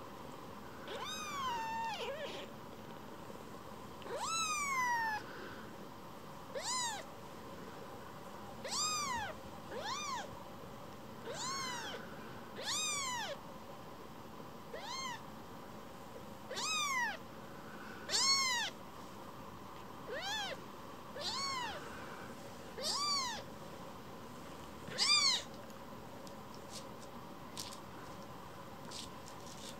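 Very young tabby kitten mewing over and over: about fifteen short, high-pitched mews, each rising then falling in pitch, a second or two apart. The first two, near the start, are longer and trail downward.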